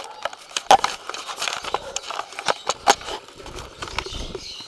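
Handling noise: a quick, irregular run of clicks and knocks, two of them louder (about a second in and near three seconds), with a low rumble near the end, from a camera being moved against the wire bars of a bird cage and its nest box.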